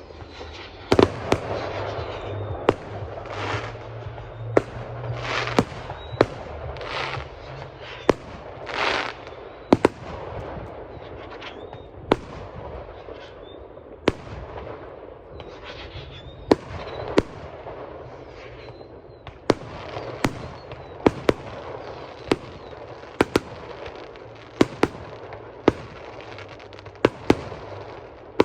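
Fireworks display: a long run of sharp bangs and cracks, dozens of them, with several longer hissing rushes among them in the first ten seconds.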